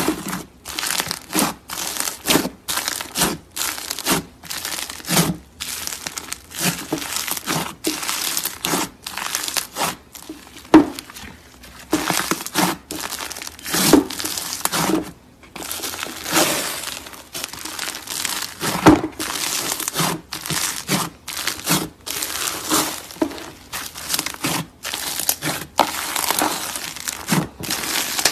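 Thick, porous slime being squeezed and kneaded by hand, giving crackling, crinkly squelches as air pockets are pressed out. They come in a run of bursts about once a second, with a few sharper pops.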